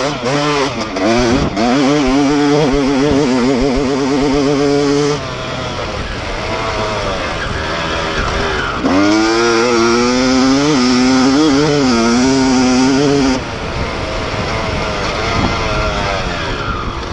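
Dirt bike engine revving hard, its pitch rising and falling with throttle and gear changes. It eases off for a few seconds about five seconds in and again a little past halfway, then pulls hard between.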